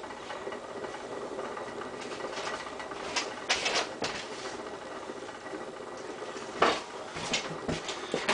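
Steady low background hum with a few short clatters and rustles of kitchen items being handled, about three seconds in and again near seven seconds.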